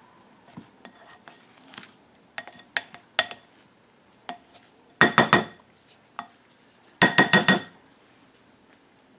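A spoon mixing mashed potato in a glass bowl, with light scattered clicks against the glass. It is followed by two quick runs of four or five ringing knocks, about two seconds apart, as the spoon is rapped on the bowl.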